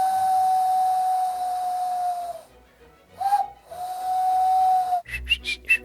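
A girl imitating a sound effect with her mouth: a steady, high whistle-like tone held for about three seconds, a quick breath, then the same tone held again for about a second. Near the end a different, pulsing sound with a low hum takes over.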